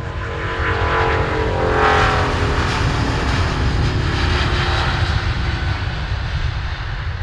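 Jet airliner passing close by: its engine whine slides down in pitch as it goes past over a heavy, steady low rumble, loudest about two seconds in and easing off toward the end.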